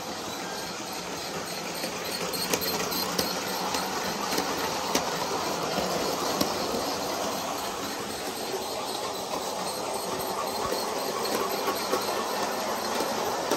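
Bachmann G-scale Percy electric model train running round its track, a steady rattle of wheels and motor with scattered sharp clicks, getting a little louder as the coaches pass close by a few seconds in.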